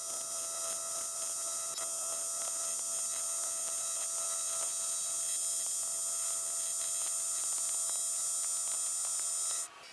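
AC TIG welding arc on aluminum: a steady electric buzz with a high whine that cuts off suddenly near the end as the arc is broken.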